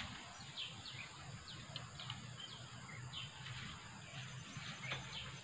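Faint tropical riverside ambience: a steady high insect drone with scattered short bird chirps over it.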